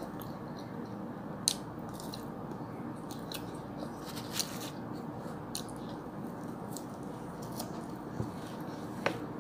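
A person chewing a mouthful of instant noodles, with short, sharp mouth clicks and smacks about once a second over a steady background hiss.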